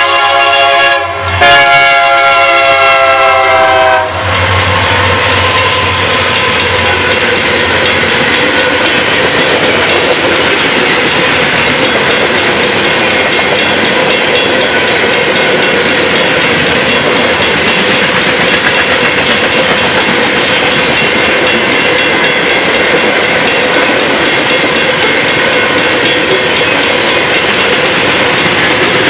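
Freight train's locomotive horn sounding for a grade crossing, with a brief break about a second in and cutting off about four seconds in. Then the steady clatter of wheels on rails as the cars roll past.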